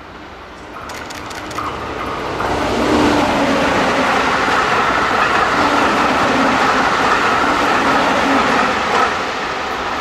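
Keihan 3000 series electric multiple-unit train passing through at speed: the rumble of wheels on rail builds from about a second in and stays loud and steady with a steady hum on top, then eases off near the end as the train draws away.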